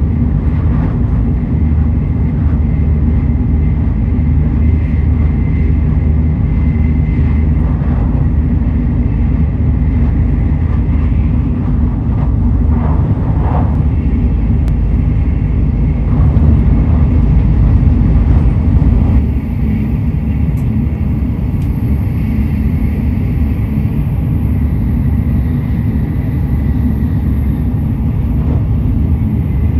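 Cabin noise of a Tokaido Shinkansen running at speed: a steady low rumble of wheels on rail and rushing air. It swells a little, then drops slightly about two-thirds of the way through.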